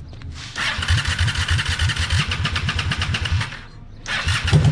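Electric starter cranking the Honda VLX 600's V-twin engine in fast regular pulses with a steady starter whine, for about three seconds without catching. After a short pause it cranks again near the end.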